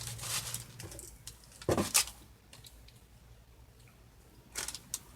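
Light crinkling, tapping and clicking of snack packaging being handled, with a brief louder sound about two seconds in and a few more clicks near the end.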